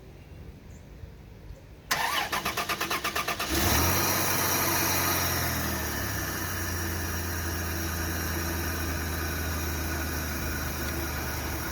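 1998 Dodge Grand Caravan engine cranking on the starter for about a second and a half, then catching and flaring briefly before it settles into a steady idle. It is a start after the van has sat unused for two to three weeks.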